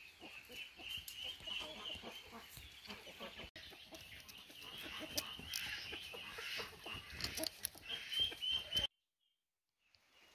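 Chickens clucking, with a continuous high chirring underneath. The sound cuts off suddenly near the end, leaving a moment of silence before a quieter outdoor ambience.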